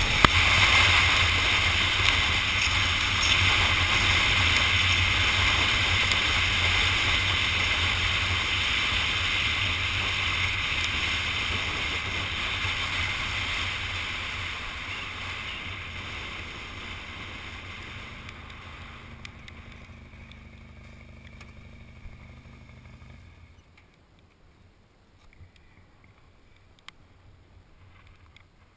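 Wind rush and engine hum from a moving motorcycle, recorded by a camera on the bike. The noise fades gradually and drops away almost entirely near the end, leaving a few faint clicks.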